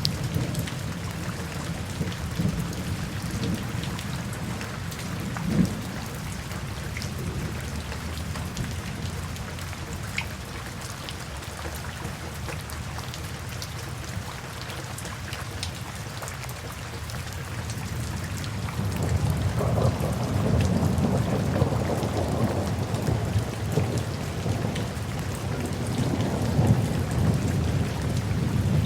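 Steady rain falling, with a long, low rumble of thunder building up about two-thirds of the way in and carrying on to the end.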